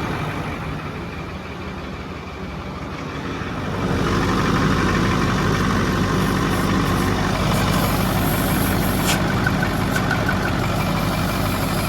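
Ford 6.4 PowerStroke twin-turbo V8 diesel running just after being started. About four seconds in it gets louder and settles into a steady, fuller idle.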